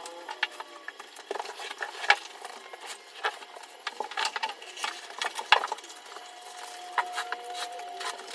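Irregular sharp clicks, snaps and knocks from vinyl plank flooring being handled and worked by hand.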